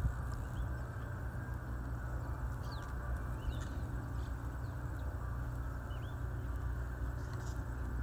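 Outdoor ambience: a steady low rumble with a handful of faint, short, high bird chirps scattered through it.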